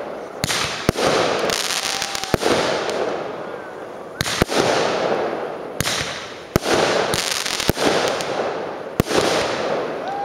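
Aerial fireworks display: about a dozen sharp bangs of shells bursting at irregular intervals, each followed by a fading crackling hiss.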